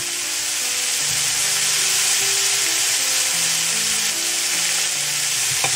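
Diced carrots, celery, peas, onions and peppers sizzling steadily in oil in a frying pan. Soft background music notes play underneath.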